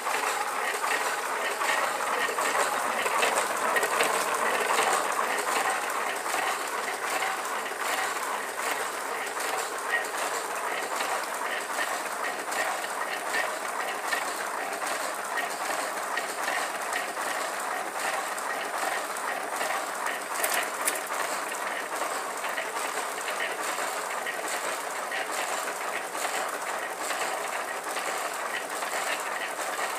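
Large home-built wooden power-wheel rig spinning at speed, its roller chain and sprockets running in a steady, fast rattling clatter with a few sharper clicks.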